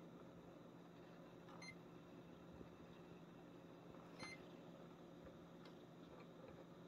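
Two short electronic beeps from a Lowrance Hook2 7x HDI fishfinder's keypad as its buttons are pressed, about two and a half seconds apart, over a faint steady hum.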